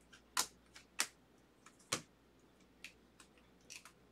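Glossy Bowman baseball cards being flicked through one at a time, each card snapping off the stack with a sharp click: three louder clicks in the first two seconds, then a few softer ones.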